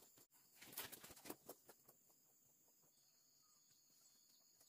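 Near silence, broken by a short patch of faint crackling and rustling about a second in, over a steady faint high-pitched hum.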